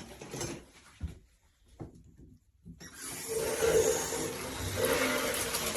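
A couple of soft knocks, then about three seconds in the AMORIX shower head is turned on and water suddenly starts rushing out, spraying steadily down into a soaker bathtub.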